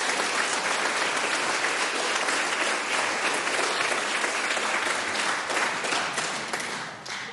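A roomful of people applauding, dying away near the end.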